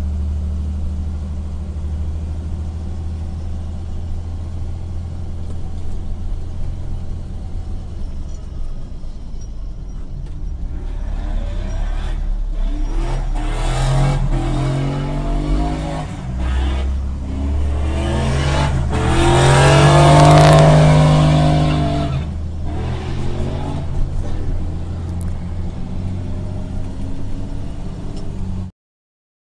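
A vehicle engine revving hard, rising and falling in pitch several times, loudest about two thirds of the way through, over a steady low hum of a car on the road. The sound cuts off suddenly near the end.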